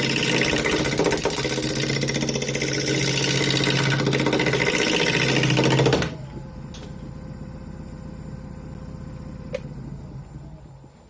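Woodturning lathe running while a tool works the spinning pine blank: a loud, rough scraping for about six seconds that stops abruptly, leaving only the motor's hum. Near the end there is a click and the hum dies away as the lathe winds down.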